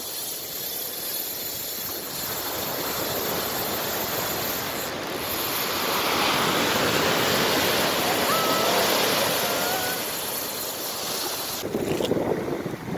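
Ocean surf breaking and washing up a sandy beach, swelling to its loudest in the middle, with an abrupt change in the sound near the end.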